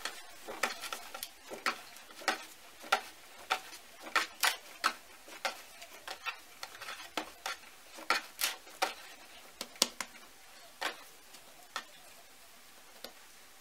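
Bread dough being kneaded by hand on a floured wooden board: irregular short slaps and sticky smacks, about two or three a second, as the dough is pressed, folded and turned, growing sparser near the end.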